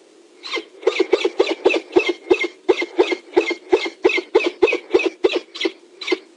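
Peregrine falcon cacking: a rapid run of harsh, repeated 'kak' calls, about three to four a second, starting about half a second in and stopping near the end.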